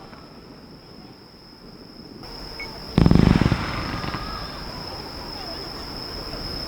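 A single loud firework boom about three seconds in, fading away over a second or so, with faint voices after it and a steady high-pitched tone underneath.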